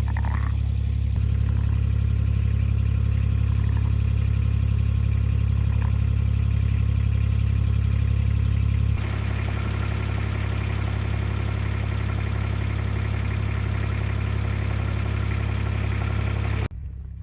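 A vehicle engine running steadily with a low, even drone. Its sound changes abruptly about a second in and again about nine seconds in, and it cuts off just before the end.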